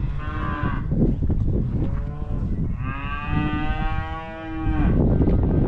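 Cattle mooing: a short moo at the start, then a long, drawn-out moo lasting about two seconds near the middle.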